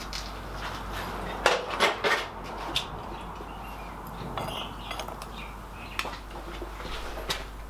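Metal objects being handled in a forge: sharp clinks and clatters, a quick cluster of them about one and a half to two seconds in, and single clinks later on, over a steady background hum.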